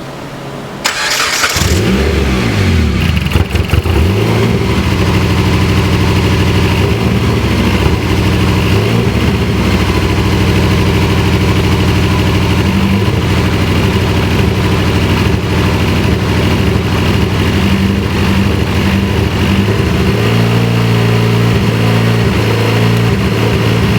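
Dodge Caliber SRT-4's turbocharged four-cylinder engine cranks briefly and catches about a second and a half in, then runs unevenly, its note changing about twenty seconds in. The rough running is the misfire that the owners trace to a bad ignition coil and an oil-saturated spark plug.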